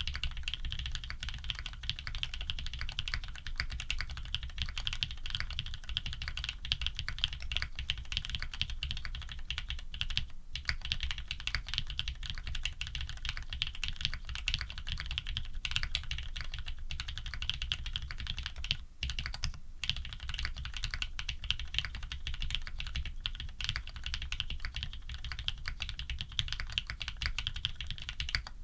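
Continuous fast typing on a Think 6.5 v2 custom mechanical keyboard with lubed linear switches (Cherry black housings with cream stems), an FR4 plate and PBT keycaps, a dense stream of keystrokes with brief pauses about ten and nineteen seconds in.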